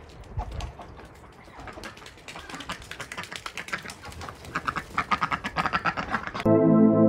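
A flock of Indian Runner ducks quacking in quick, overlapping calls that grow busier and louder. Music cuts in abruptly near the end.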